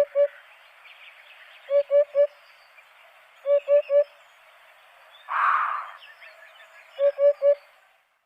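A bird calling in short hooting phrases of three notes, repeated about every second and a half to two seconds, over a steady background hiss. About five seconds in there is a louder, harsh noisy call.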